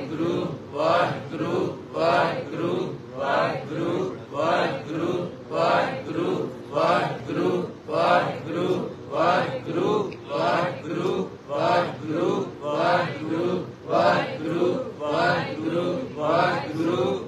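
A man's voice chanting a short devotional phrase over and over into a microphone, in a steady, even rhythm without pause.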